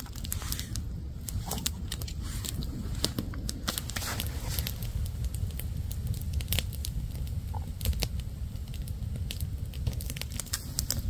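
Wood campfire crackling, with irregular sharp pops over a low steady rumble.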